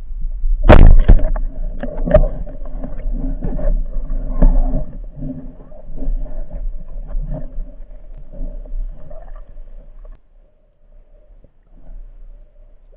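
Water sloshing and knocking around a camera in the water during spearfishing. A loud clatter comes about a second in, then smaller knocks and sloshing that die down after about ten seconds.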